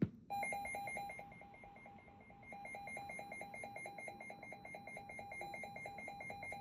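Weather alert radio's alarm sounding a rapid, evenly pulsed electronic beep, signalling a newly received warning; a short click comes just before it starts.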